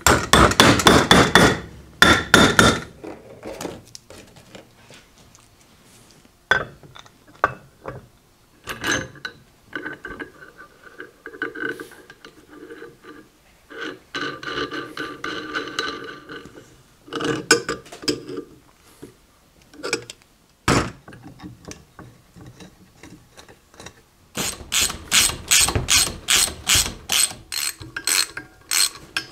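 Bearings being tapped into a steel drive bracket with a hammer and brass drift: quick runs of ringing metallic taps near the start and again near the end, with scattered clinks of steel parts and tools in between.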